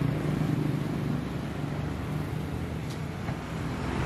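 Street traffic: a steady low engine rumble from vehicles on the road.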